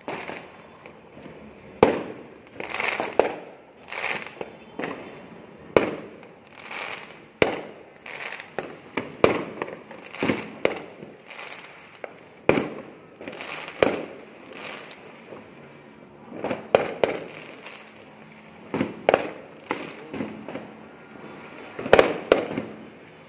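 Fireworks going off: a run of loud, sharp bangs every second or two, with softer, more distant bangs between them, and a quick cluster of sharp bangs near the end.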